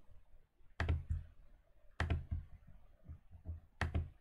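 Three sharp computer mouse button clicks, about a second in, a second later and near the end, each followed by a short low thud.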